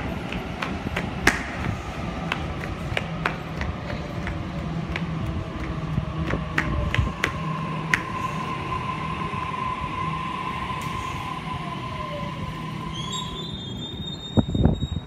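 Sydney Trains electric passenger train moving past the platform: a steady rumble with scattered clicks, a held whine and a lower tone gliding down in pitch, then a higher whine near the end. A few heavy thumps come just before the end.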